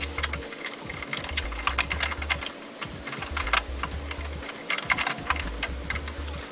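Metal clicking and clinking in irregular bursts: a hand wrench and the parts of a VW bus gear shifter knocking together as the shifter is fitted and fastened back onto its mount.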